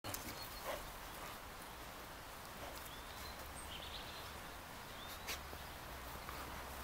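Quiet outdoor ambience: a steady low hum and hiss, with a few faint, short, high-pitched bird chirps and an occasional soft click.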